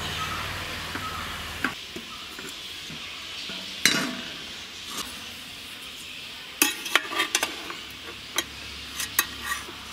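Metal cookware being handled on a stove: a steady hiss that stops with a click after a second and a half, a loud clank as a steel kadai is set down about four seconds in, then a run of lighter metal clinks and knocks near the end.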